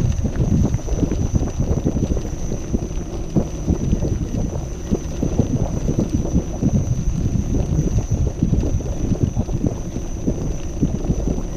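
Kingsong KS14 electric unicycle's tyre rolling over cobblestones: a steady rumble made of many small, irregular knocks and rattles, with some wind on the microphone.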